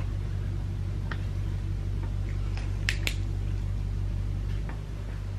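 A few light clicks and taps of the parts being handled as a replacement pistol grip is pushed onto an AR-15 lower receiver, the sharpest about three seconds in. A steady low hum runs underneath.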